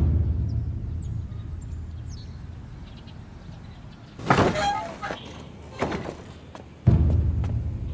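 A deep low boom that dies away slowly over several seconds. About four seconds in, wooden lattice doors are pushed open, with a short click soon after. A second deep boom follows near the end.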